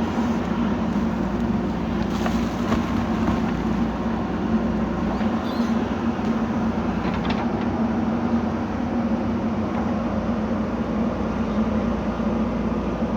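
JCB 3DX backhoe loader's diesel engine running steadily under digging load, with a couple of faint knocks.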